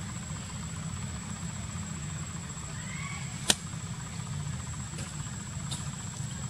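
Steady low mechanical hum like an idling engine, with a thin constant high whine and one sharp click about three and a half seconds in.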